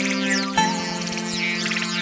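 Electronic background music: synthesizer chords held steady, changing to a new chord about half a second in.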